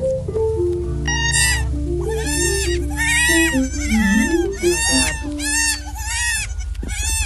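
Goat kids bleating: a string of about eight high-pitched bleats, each about half a second long. Background music with a slow melody of held notes plays underneath.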